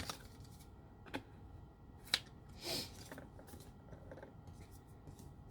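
Scattered light clicks and taps, the sharpest about two seconds in, with a brief rustle just after: small items and packaging from a nail-art subscription box being handled and set down.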